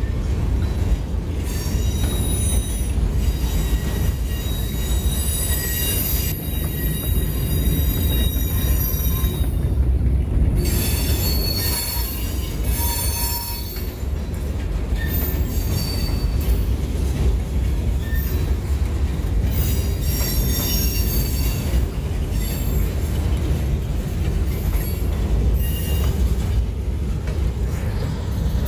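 Freight train rolling slowly through a crossing: a steady low rumble, with many short high-pitched squeals from the wheels on the rails coming and going.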